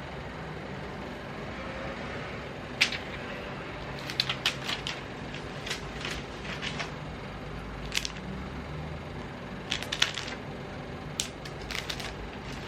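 Laptop keyboard keys tapped irregularly, singly and in short bursts, over a steady low background hum.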